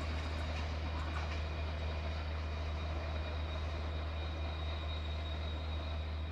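Diesel locomotive engine running steadily, a low, even drone with no wheel clatter.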